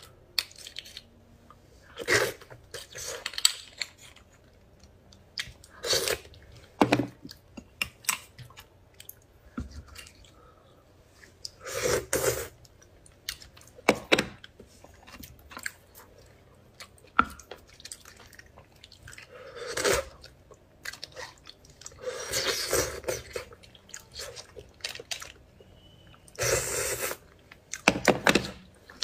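Close-miked mouth sounds of eating spicy beef bone marrow: chewing, with loud wet bursts every few seconds and small sharp clicks between them.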